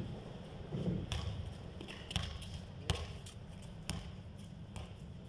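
A basketball bouncing on a concrete court as a player dribbles, sharp bounces about once a second, over a steady low rumble.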